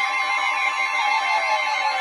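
Several weather alert radios sounding their alarms together: a jumble of overlapping steady and beeping tones, with one tone sliding slowly downward partway through. This is the radios' warning alarm set off by a special marine warning.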